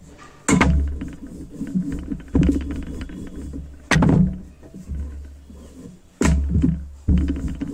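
Paratha dough being rolled out with a rolling pin on a board: a sharp knock followed by a short low rumble, again every one to two seconds.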